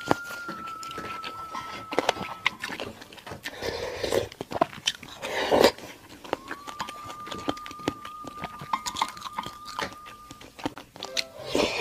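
Close-miked eating: slurping pork bone soup and chewing, with small clicks of a spoon and chopsticks against the bowls. Two louder slurps come about four and five and a half seconds in.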